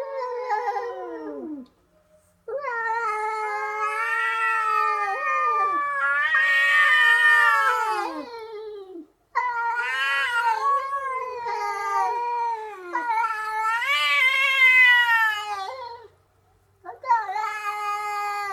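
A voice wailing and sobbing in long, wavering cries, each several seconds long and sliding down in pitch at its end, with brief pauses between them.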